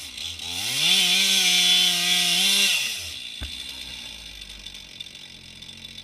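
Stihl 441 chainsaw on an Alaskan chainsaw mill revving up to a high steady pitch for about two seconds, then winding down. A single sharp knock follows, and it is quieter after that.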